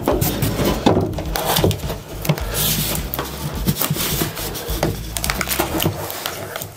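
Half-inch plywood floor sheets being shifted and pressed into place, wood knocking and scraping against wood in irregular taps and rubs.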